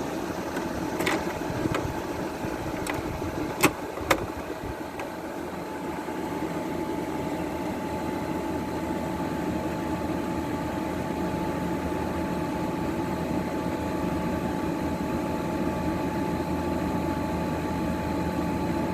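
A 12,000 BTU Frigidaire window air conditioner running steadily: the fan blowing and its LG rotary compressor humming with a steady whine. Two sharp clicks come about three and a half and four seconds in.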